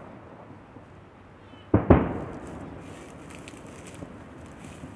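Two distant aerial firework shells bursting, two booms in quick succession about two seconds in that trail off over about a second.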